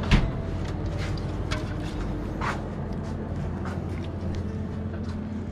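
Beer cans being handled at a glass-door drinks fridge: one sharp clack just after the start, then a few lighter clicks and knocks, over a steady low hum.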